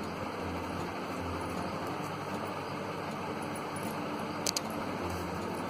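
Steady background hiss with a low hum that comes and goes, and two faint clicks about four and a half seconds in.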